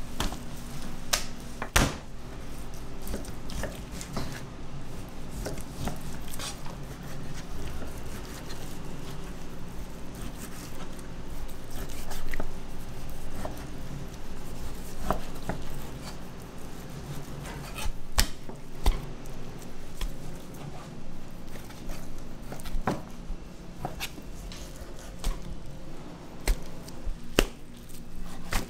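Kitchen knife slicing raw beef on a plastic cutting board, with irregular sharp taps as the blade meets the board, over a steady low hum.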